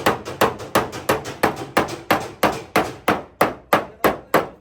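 Steady, rhythmic hammering, about three blows a second, each with a short metallic ring: a hammer beating out the damaged sheet metal of a car's rear body.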